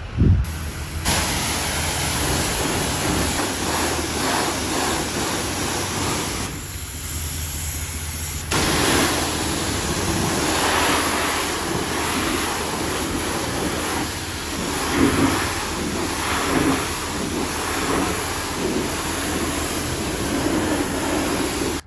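Car-wash high-pressure wand spraying water and soapy foam against a pickup truck's body panels, a steady loud hiss with a low hum underneath. The spray eases for a couple of seconds partway through, then returns.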